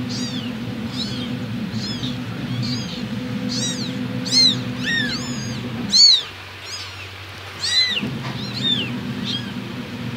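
Tiny kittens mewing over and over: high, thin calls, each rising and falling, about one or two a second, a few louder than the rest around the middle. A steady low hum runs underneath and drops out for about two seconds partway through.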